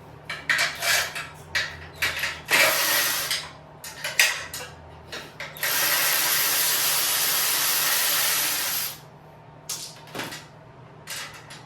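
Ratchet wrench clicking in short bursts while loosening engine mounting bolts on a minibike frame, with a steady rush of noise for about three seconds past the middle.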